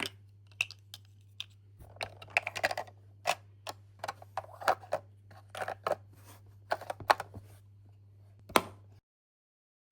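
Small plastic miniature toy groceries clicking and tapping as they are handled and set into a plastic toy fridge: a busy run of light, irregular clicks over a steady low hum. All sound cuts off suddenly near the end.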